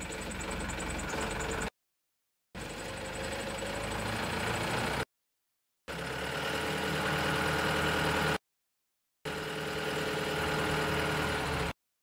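The diesel engine of a self-loading concrete mixer truck running steadily and slightly building up as the hydraulics tilt the mixing drum upward, with a steady whine above the engine note. The sound cuts out completely for under a second, roughly every three seconds.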